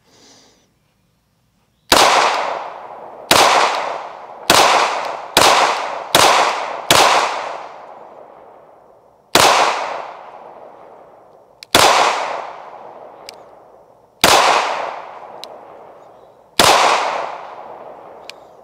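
Ten 9mm pistol shots from a Heckler & Koch VP9: six fired about a second apart, then four more spaced two to two and a half seconds apart, each shot trailing off in a long echo.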